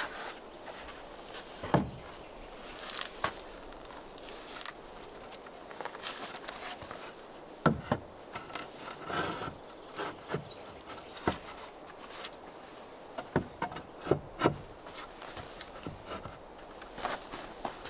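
Loose sawn wooden boards being handled and fitted by hand: irregular knocks and clunks of plank against plank, with scraping as boards slide into place.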